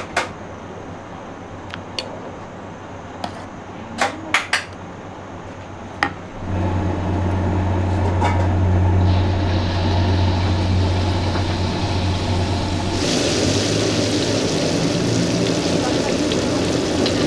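A few clicks and knocks, then about six seconds in a loud, steady low hum starts suddenly. About thirteen seconds in, the steady hiss of hot oil sizzling in a pan joins it, as the goose-egg omelet mixture is deep-fried.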